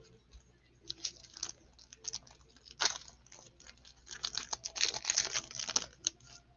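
An Optic basketball card pack's wrapper being torn open and crinkled by hand: scattered crackles, loudest and most continuous from about four to six seconds in.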